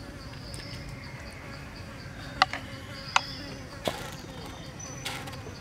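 Insects chirring steadily in a rapid high pulse, with a few sharp clicks of a spoon against crab shells as stuffing is spooned onto the crabs; the two loudest clicks fall about two and a half and three seconds in.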